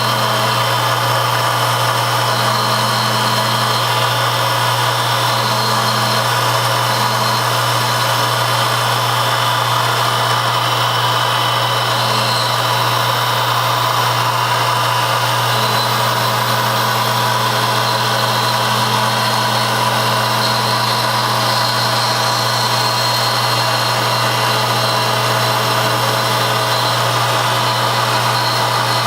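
Metalworking machine tool running steadily with a constant low hum and a whine, and a second tone that comes and goes several times in the first half and then holds from about halfway on.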